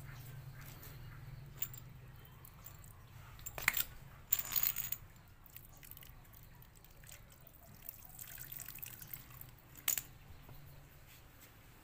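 Water trickling out of the end of a garden hose onto a wet concrete slab, faint and steady. A few short, sharp clinks or splashes stand out at about four seconds in and again near ten seconds.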